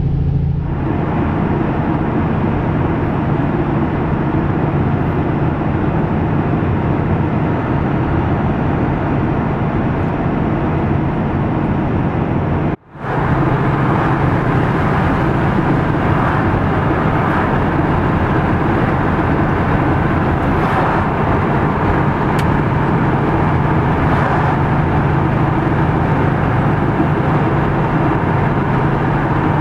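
Inside the cab of a Peterbilt 579 semi truck on the highway: a steady drone of engine and road noise. The sound drops out briefly about thirteen seconds in, then carries on the same.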